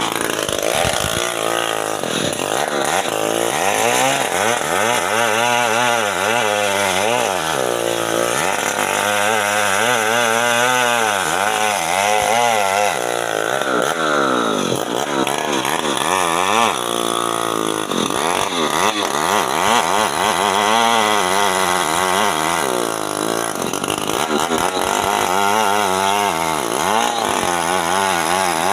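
Two-stroke chainsaw running hard while cutting guava wood, its engine pitch rising and falling again and again as the chain bites and frees.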